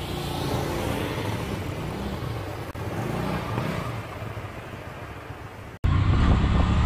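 A motor vehicle's engine running with road noise, its pitch shifting a little as it slowly fades over about six seconds. After an abrupt cut near the end comes a louder, steady low engine hum from a ridden motorcycle.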